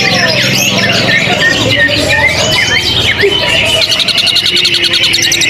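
A cucak ijo (greater green leafbird) singing among other caged songbirds, many overlapping rapid chirps and whistles, with a fast buzzy trill from about four seconds in.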